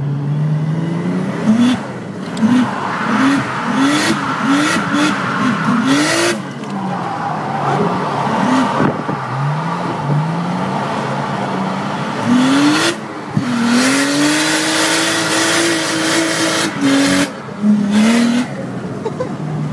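Toyota Chaser JZX100's straight-six engine, heard from inside the cabin, revving up and dropping back over and over, then held at high revs for several seconds. Tyres squeal at several points as the car drifts.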